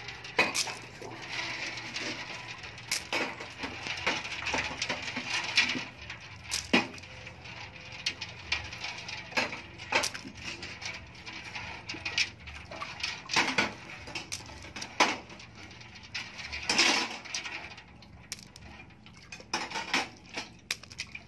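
Small river clams clicking and clinking against one another in a plastic basket as they are handled: an irregular string of sharp shell clicks over a faint steady hiss.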